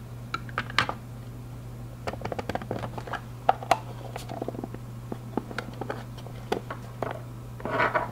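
Plastic case of a Fluke 77 multimeter being handled and snapped back together: irregular sharp clicks and knocks of plastic on plastic, with a quick cluster of clicks near the end, over a steady low hum.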